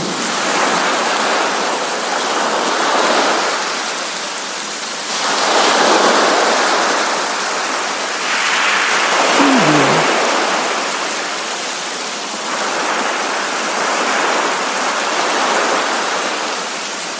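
Sea waves washing onto a shore in steady rain: the surf swells and falls back about every four to five seconds over a constant hiss of rain. A spoken 'preview' watermark comes about halfway through.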